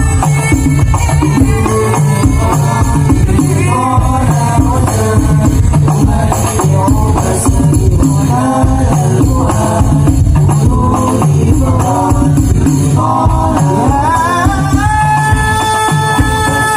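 Hadroh ensemble performing a sholawat: Islamic devotional singing over a rapid pattern of rebana frame drums and percussion, ending on a long held sung note.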